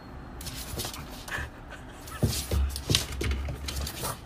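A French bulldog breathing noisily in short, irregular puffs.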